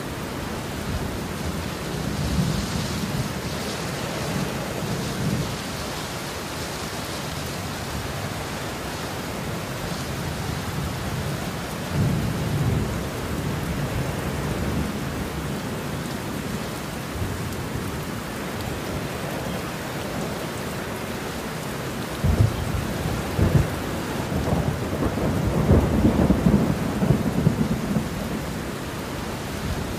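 Heavy rain falling steadily, with thunder rumbling low several times: short rolls a few seconds in and near the middle, and a louder, longer roll with sharper cracks in the last third.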